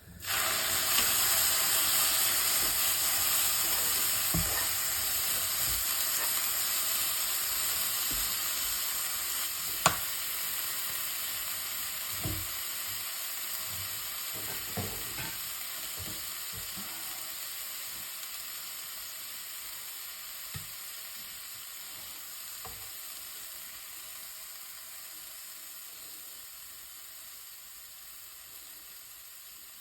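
Food hitting a hot pan for a stir-fry of anchovies and chilli peppers, bursting into a loud sizzle all at once and then slowly dying down, with a few sharp knocks as it is stirred, the loudest about ten seconds in.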